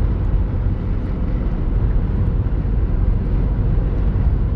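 Steady road and engine rumble inside a moving car's cabin at highway speed.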